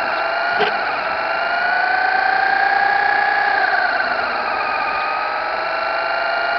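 Traxxas Slash 4x4 RC truck's electric motor and gear drivetrain whining as it drives slowly, the pitch rising gradually, dropping about four seconds in, then rising again. A single click about half a second in.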